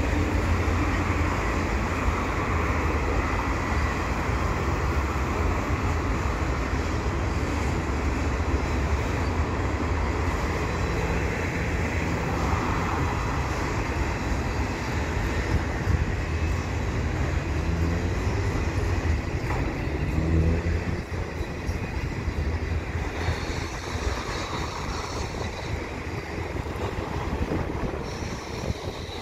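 Freight train of enclosed autorack cars rolling past: a steady rumble of wheels on rail.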